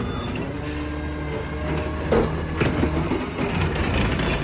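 McNeilus ZR automated side-loader garbage truck gripping and lifting a trash cart with its hydraulic arm. The truck's engine runs up steadily under the hydraulic load, with a whine, then clunks of the arm and cart from about two seconds in.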